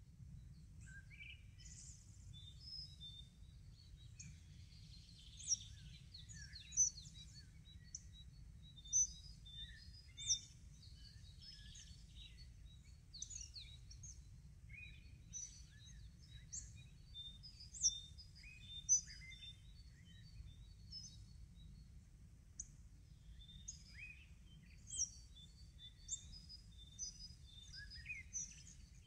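Several small birds chirping and singing at once, short high calls and trills overlapping throughout, with a few louder calls standing out. A low steady rumble lies underneath.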